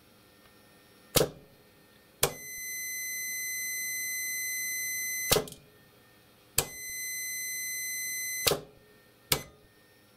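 Siemens 3TB41 contactor clacking as its coil is powered: six sharp clicks. Twice, from a closing click to the next opening click, a digital multimeter's continuity beeper sounds a steady high tone for about two to three seconds, showing the contacts closed.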